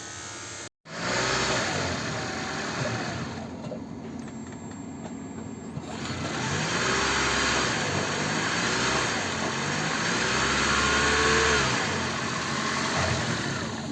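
Toyota Prius four-cylinder petrol engine starting and running smoothly, its level rising and easing off over several seconds, with none of the rattle it had before repair: its new injectors and spark plugs have it firing evenly on all four cylinders.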